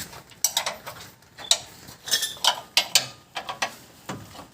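Irregular metallic clicks and clanks of hand tools and parts being worked on a pickup's front suspension.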